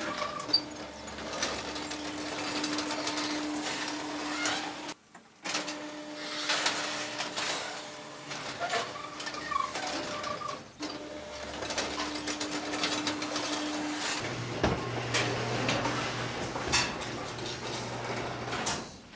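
Electric garage door opener running: a steady motor hum with scattered clicks and rattles, broken by two short gaps. About fourteen seconds in, the hum drops to a lower pitch.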